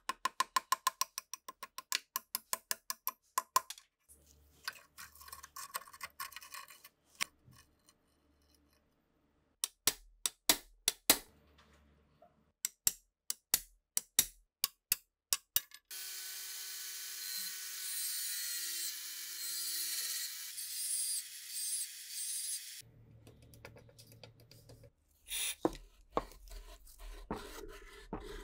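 Hammer tapping a punch against a rusted STEN Mk2 part held in a steel vise, metal-on-metal strikes in a quick run of about five a second and then in shorter groups. About halfway through comes a steady hiss lasting about seven seconds, followed by rubbing and scraping on the metal.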